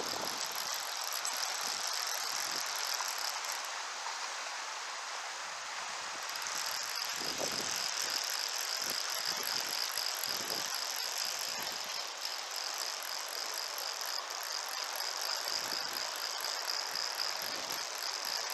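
Steady rush of river current, with the fast ticking of a fishing reel being cranked while fighting a large brown trout. The ticking pauses for a couple of seconds about four seconds in, then carries on.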